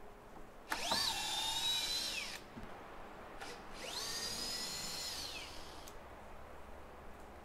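Power drill run twice: each time the motor spins up, holds a steady whine for a second or two, then winds down.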